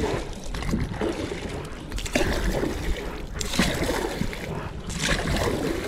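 Wooden paddle strokes pulling a small aluminium boat through the water: repeated splashing with water trickling off the blade between strokes.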